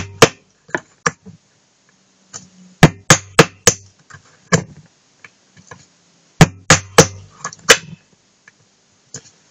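Hammer striking a small nail to punch holes through the aluminium bottom of a soda can, in short runs of about four sharp taps, roughly three a second, with pauses between the runs.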